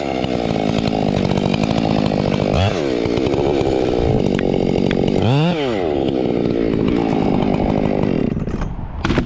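Two-stroke chainsaw running at high revs, its pitch dropping and climbing back twice. It dies down near the end.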